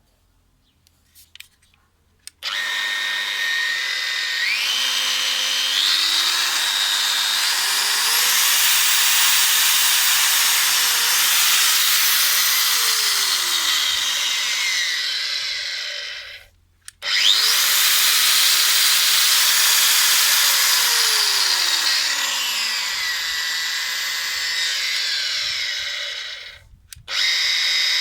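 Metabo WEV 17-150 Quick variable-speed angle grinder running with no load, a loud motor whine whose pitch steps up and later glides down as the speed changes. It is switched off and on again twice.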